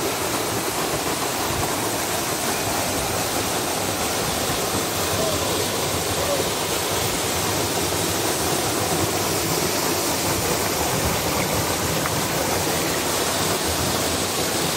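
Small mountain waterfall pouring steadily down rock and splashing into a shallow pool: an even, unbroken rush of falling water.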